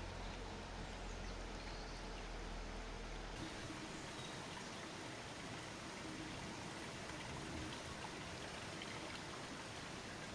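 Steady rushing, water-like noise, like running or bubbling water. A low hum underneath stops abruptly about three seconds in.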